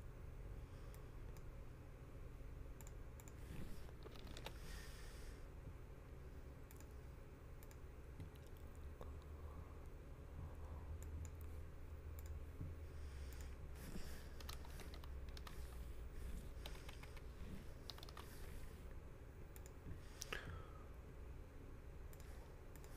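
Faint scattered clicking of computer keyboard typing over a low steady hum.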